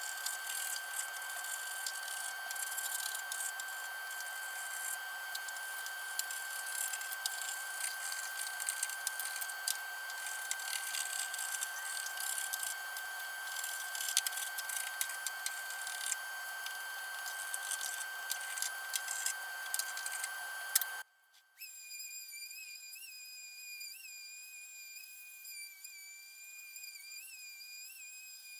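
Hand tool scraping and rubbing over a wooden tabletop, with short scrapes over a steady high tone. It stops abruptly about three-quarters of the way in, followed by a quieter high whistling tone whose pitch blips up about once a second.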